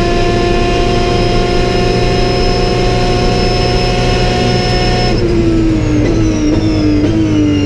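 Vintage racing car engine running hard at high revs. About five seconds in the pitch drops suddenly, then keeps falling in small steps as the car slows.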